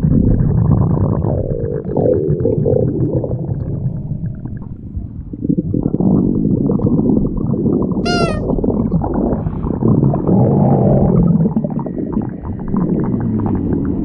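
Stomach growling recorded with a microphone held close to the belly: a continuous run of low rumbles and gurgles that swell and ease. There is a brief high squeak about eight seconds in.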